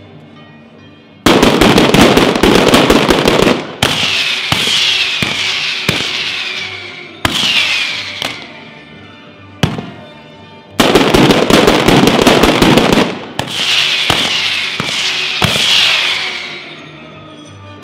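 Ground firecracker display (batteria alla bolognese) going off. About a second in, a dense volley of firecrackers crackles for a couple of seconds, followed by whistles that fall in pitch and single sharp bangs. A second volley starts about eleven seconds in and again trails off into falling whistles.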